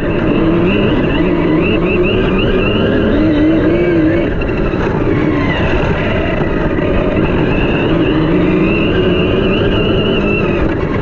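Team Corally Kronos XP 1/8-scale monster truck's 6S brushless electric drivetrain whining under throttle, its pitch rising and falling as the speed changes, with the tires tearing through grass. Heard close up from a camera mounted on the truck.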